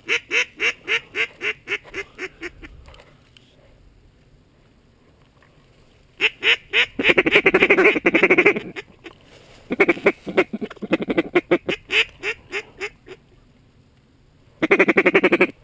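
A hunter's mallard duck call blown close by to lure mallards in: a run of quacks at about four a second that fades over the first three seconds, then fast, rolling chatter in bursts, with pauses between the runs.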